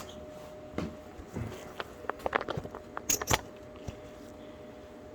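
Scattered clicks and knocks of things being handled, with a quick run of clicks about two seconds in and two sharper snaps about three seconds in.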